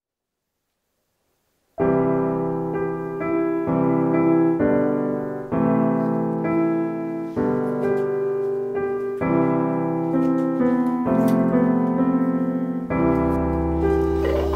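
Soundtrack piano music: slow chords changing about once a second, starting after nearly two seconds of silence, with a deep bass note joining near the end.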